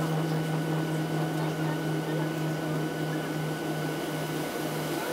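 Steady cabin noise inside a Boeing 737-700 taxiing: a low hum with a thin higher whine over an even hiss of air.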